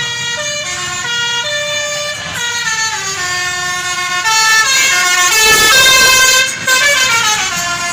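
Basuri 'telolet' multi-tone bus air horn playing a tune, one note after another at stepped pitches. It is loudest around five to six and a half seconds in.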